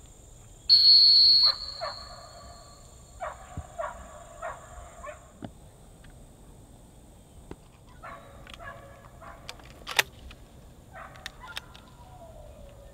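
One loud blast of a dog whistle, then a duck call blown in runs of short, quacking notes, with a sharp crack about ten seconds in.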